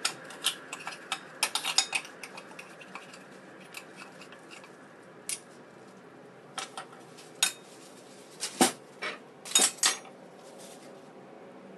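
A metal spoon clinking and scraping against a ceramic plate and abalone shells as cooked abalone is prised out. The clicks come in a quick run at first, then thin out, with a few louder knocks near the end.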